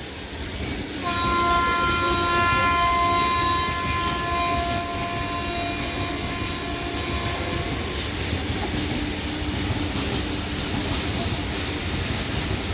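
Freight train hauled by a WAG-9 electric locomotive running past at about 35–40 km/h, its wagons rumbling and clattering on the rails. A train's air horn sounds one steady tone, starting about a second in and lasting about seven seconds.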